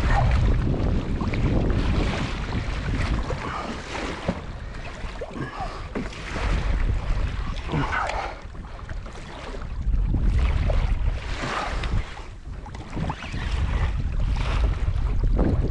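Wind buffeting the microphone in repeated gusts, over the wash of sea water around a kayak.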